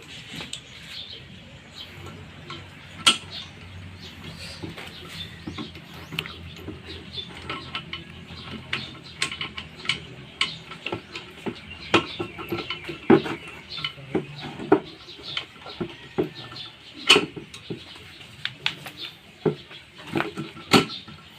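Irregular metallic clinks and knocks of hand tools and small engine parts being handled during a motorcycle engine teardown, a few louder sharp clanks among them.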